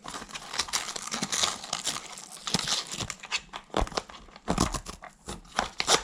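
Packaging being crinkled and rustled by hand, an irregular run of sharp crackles.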